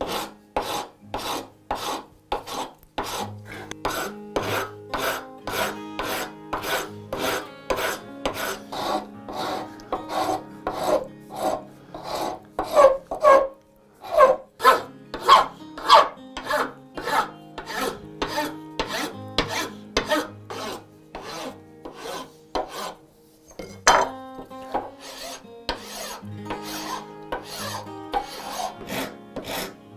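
Hand rasp or file strokes on a hardwood screwdriver handle scale, in a steady rhythm of about two strokes a second, with short breaks about halfway through and again about three-quarters of the way through.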